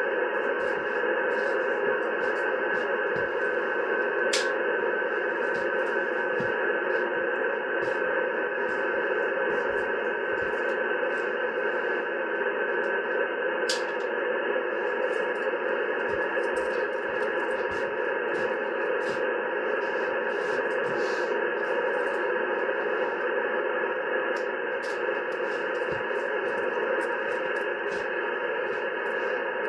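Yaesu FT-710 transceiver's speaker giving a steady hiss of interference noise on upper sideband in the 10-metre band, with a faint steady whistle that fades out about halfway through. It is a pretty bad noise whose source is unknown; the operator suspects his computer adds to it.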